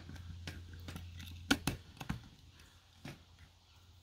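A few sharp small clicks and taps of plastic and batteries as AA batteries are handled and fitted into the battery compartment in the handle of an electric mosquito-zapper racket. The loudest clicks come about one and a half seconds in.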